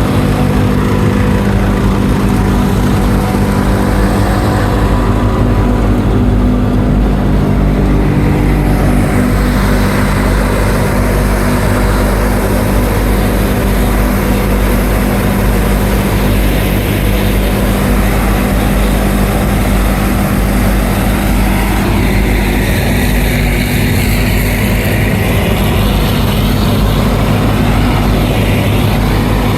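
Diesel engines of farm machinery, a tractor and forage harvester, running steadily at working speed with a constant low hum.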